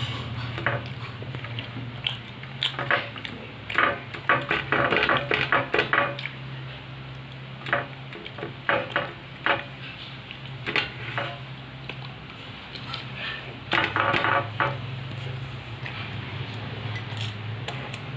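Fingers and bread scraping and tapping on a divided stainless steel plate while eating by hand: irregular clinks and scrapes, busiest about four to six seconds in and again around fourteen seconds. A steady low hum runs underneath.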